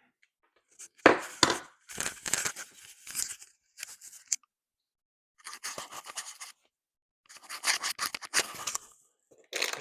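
Packaging rustling and crinkling as parts are handled out of a box, in three bouts with sharp clicks and taps among them.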